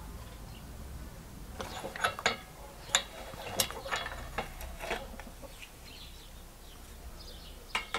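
Bench vise being worked shut on a wooden template, brass sheet and rubber pad, pressing the thin brass into an oval spoon shape: a quick run of sharp metallic clicks and knocks over a few seconds, then one more knock near the end.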